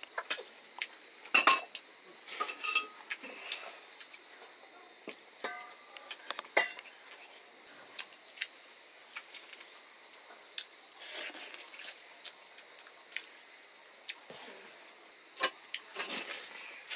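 Fingers mixing rice on a stainless steel plate held in the lap: scattered short clinks and scrapes of the metal plate, irregular and unhurried, with louder knocks about a second and a half in and again near the end.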